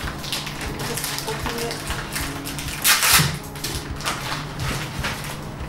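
Clear plastic packing bag and paper rustling and crinkling as they are handled, with one louder crinkle about three seconds in.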